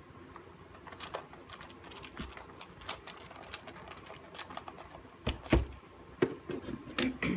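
Scattered small clicks and light knocks from handling the BMW Z4 instrument cluster on the bench, with a few louder knocks in the last two seconds.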